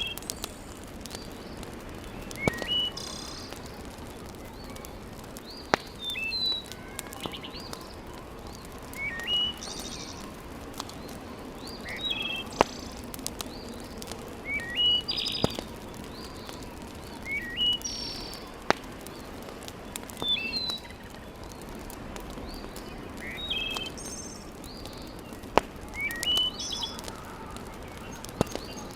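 Birds chirping, short rising calls repeated every couple of seconds, over a steady background hiss, with a few sharp pops from a wood fire in a fireplace.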